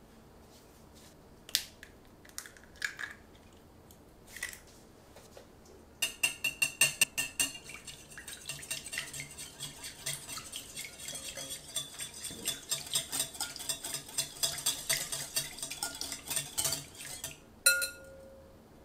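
A wire whisk beating a thin egg-and-milk mixture in a glass bowl: rapid clicking of the wires against the glass for about eleven seconds, ending with one sharp, ringing tap on the bowl. A few light knocks come before the whisking starts.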